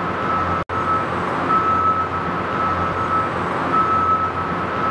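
Electric reach truck's warning alarm beeping, a single steady tone roughly once a second, each beep about half a second long, over a steady low hum and warehouse noise. The sound cuts out completely for an instant just under a second in.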